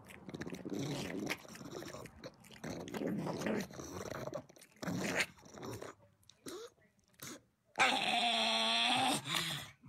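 Pug grumbling and grunting close to the microphone in a string of short irregular sounds, then a louder, longer wavering call near the end.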